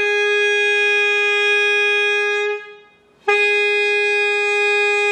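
Alto saxophone mouthpiece (Selmer Concept, Vandoren Traditional No. 3 reed) blown on its own, without the neck or body: two long, steady held tones of about two and a half seconds each, with a short break between. It is the basic mouthpiece-only embouchure exercise: upper teeth fixed on the mouthpiece, lower lip resting lightly under the reed, and a little more breath.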